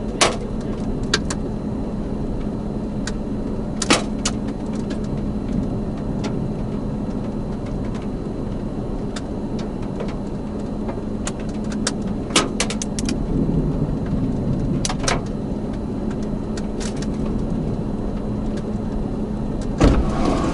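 A vehicle idling with a steady low hum under a rumble of wind, broken by a scattering of sharp taps, the loudest about 4 s in and near 12 s.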